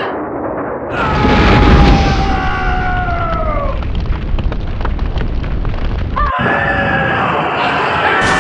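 Dubbed sound-effect explosion: a loud boom about a second in, with cries wailing and falling in pitch over it. Dense crackling and rumbling follow, then another long falling scream starts near the end.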